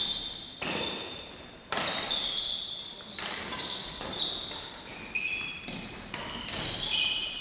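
Badminton rally in a sports hall: racket strikes on the shuttlecock every second or so, each ringing briefly in the hall, with short high-pitched squeaks of shoes on the court floor between them.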